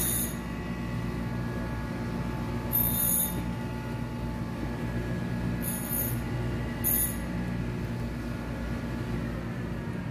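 A steady mechanical hum with four short, high-pitched squeals spread through it.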